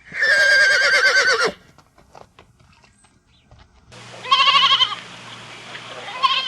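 A horse whinnies, one long wavering call. After a short pause with a few faint knocks, a goat bleats with a quavering cry about four seconds in, and once more briefly near the end.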